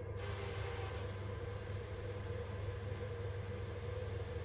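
Mains water hissing steadily through a gas boiler's opened filling loop, topping up the central heating system to raise its low pressure. The hiss starts suddenly, over a low steady hum.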